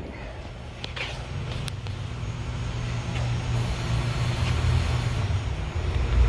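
A steady low rumble that grows gradually louder, with a few light clicks about a second in.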